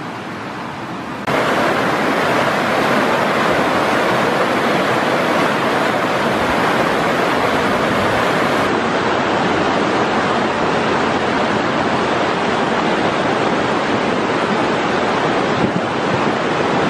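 A river rushing over rocks in rapids: a steady, loud rush of water that comes in suddenly about a second in, after a quieter background.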